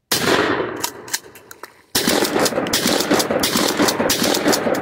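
Shotgun blasts: one right at the start, then another about two seconds in, each followed by a long rolling echo with crackle.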